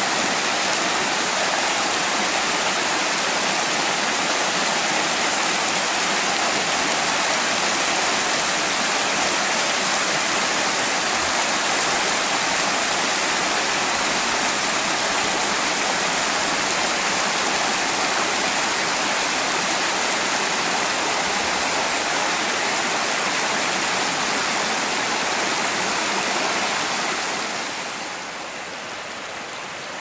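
Shallow rocky creek running fast over stones and small ledges: a steady rushing, splashing sound. Near the end it drops to a softer, more distant rush.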